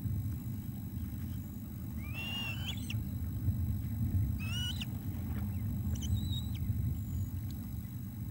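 Ospreys on the nest calling: three short, high calls a second or two apart, the first two rising in pitch, over a steady low rumble.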